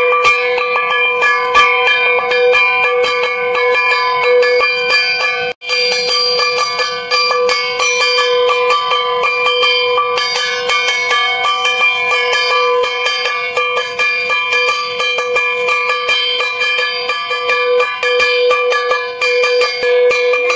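Bells ringing continuously: many overlapping bell tones with rapid repeated strikes, cut off for a moment about five and a half seconds in, then going on.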